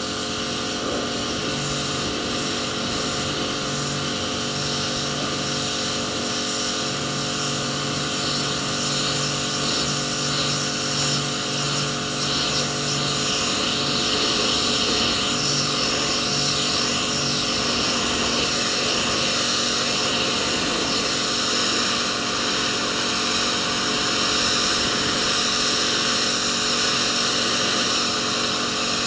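Electric pressure washer running steadily: a motor and pump drone with the hiss of the water jet spraying onto a boat hull.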